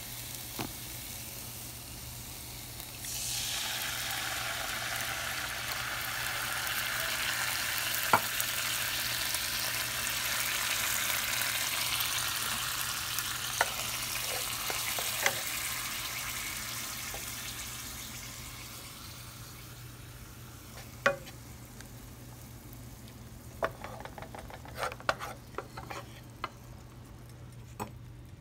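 Garlic and tomato sauce sizzling in a hot frying pan, the sizzle rising about three seconds in and fading over the second half, while a wooden spatula knocks and scrapes against the pan. A few sharp knocks come near the end, over a steady low hum.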